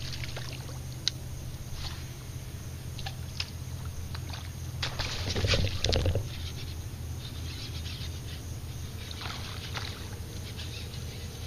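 Sounds of fishing from a small boat on calm water: a steady low hum under a light wash of water noise, with scattered short clicks and a louder rush of noise about five to six seconds in.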